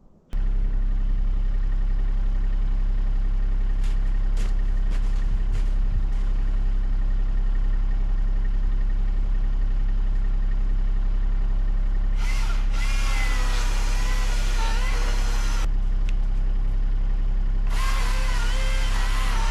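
Milwaukee battery-powered chainsaw switching on just after the start and running steadily. About twelve seconds in it cuts into the poplar, a brighter, harsher sound with a wavering whine as the chain takes the load; it eases off briefly about sixteen seconds in, then bites into the wood again near the end.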